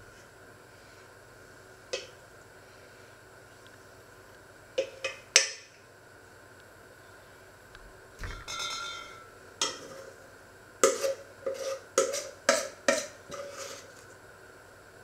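Kitchenware clinking and knocking as food is scraped out of a bowl into a pot: a few scattered knocks, a short scrape, then a quick run of about seven sharp knocks with a brief ring in the second half.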